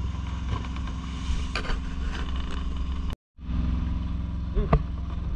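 A fishing boat's engine running steadily, a constant low hum with an even drone above it. The sound cuts out completely for a moment about three seconds in.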